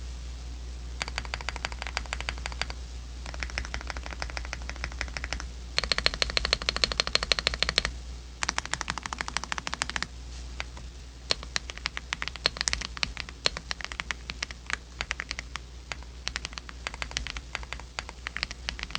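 Typing on an Archon AK47 keyboard: fast runs of key clicks, each lasting a couple of seconds, the loudest run about six to eight seconds in, then slower, scattered keystrokes. A steady low hum runs underneath.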